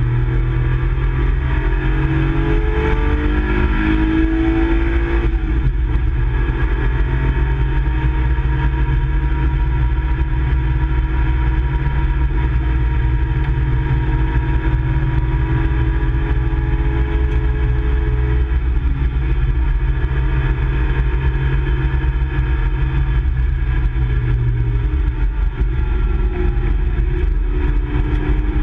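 Nissan Skyline 2000 GT-R (KPGC10) S20 twin-cam straight-six running hard on track, heard from inside the cabin. Engine pitch rises and falls in the first few seconds, holds fairly steady for a long stretch, and changes again near the end.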